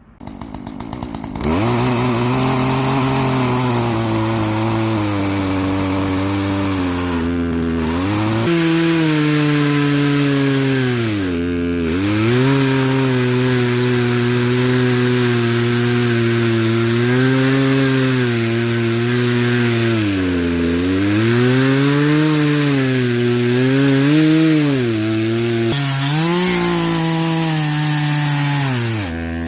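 Chainsaw starting up and cutting a fallen tree trunk into pieces. The engine note dips and recovers several times, and the saw cuts off right at the end.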